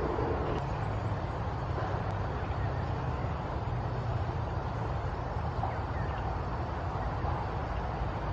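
Steady low outdoor background rumble, with a few faint short chirps over it.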